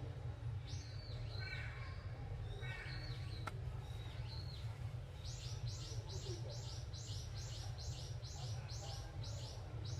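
A small bird chirping, with scattered calls at first, then a quick even series of high chirps, about three a second, from halfway through. A steady low rumble runs underneath.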